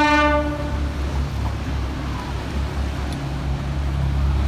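A boat horn's long, steady blast trails off in the first moment. It gives way to the steady low rumble of a boat under way, its engine running with wind and water noise.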